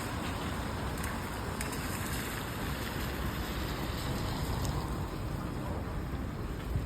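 Steady rainy city street ambience: an even hiss of rain and wet surfaces over a low traffic rumble, with a few faint ticks.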